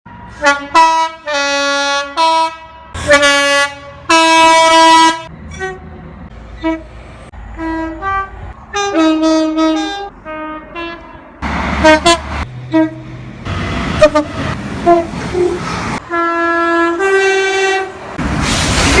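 Train horns sounding a rapid series of blasts: short toots and longer calls that alternate between a lower and a higher note, two-tone style. A rushing noise comes in between blasts a little past the middle and again near the end.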